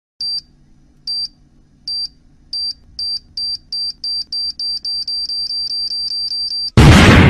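Time-bomb countdown sound effect: high electronic beeps, slow at first and then faster and faster until they almost run together, over a low hum, ending in a loud explosion near the end.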